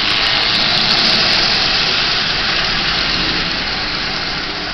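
Marx Commodore Vanderbilt O-gauge toy locomotive running forward on tinplate track, its electric motor and gears whirring on DC from a portable controller, with the wheels rumbling on the rails. The sound is steady, loudest early and easing off a little.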